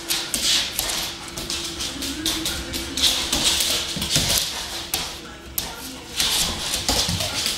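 A dog's claws scrabbling and clicking on a hard tile floor as it darts and pounces after a laser dot, in quick irregular bursts of scratching and tapping.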